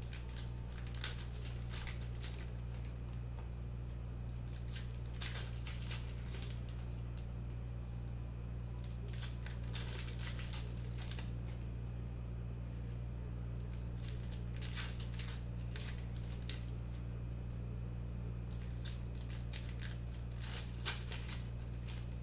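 Foil wrappers of trading-card packs crinkling and being torn open by hand, in short crackly spells every few seconds, over a steady low hum.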